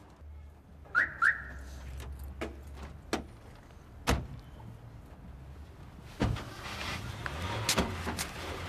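Two short chirps close together about a second in, each rising in pitch, then a few scattered knocks and clicks, the sharpest about four seconds in, over a low hum.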